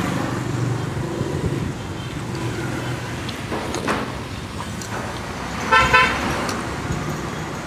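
Street traffic with a low engine rumble passing, and a short vehicle horn toot about six seconds in.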